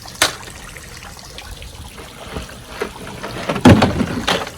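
Water trickling in a sprinkler pool, with a sharp knock just after the start and a louder clattering splash near the end as a toy vehicle hits the water.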